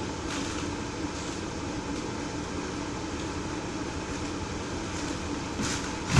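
Steady low background rumble with a few faint taps or rustles; the loudest tap comes at the very end.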